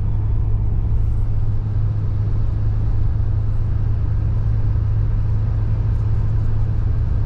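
Steady low drone inside a pickup truck's cab at highway speed: engine and road noise with a constant hum, unchanging throughout.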